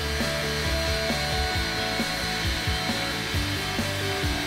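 Steady hiss of steam escaping around the cylinders of steam locomotive No. 448, with background music with a steady beat laid over it.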